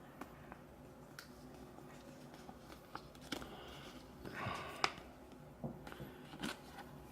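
Trading cards being handled by hand: faint scattered clicks and taps, with a brief rustle of cards sliding against each other about four seconds in that ends in a sharp click, the loudest sound here.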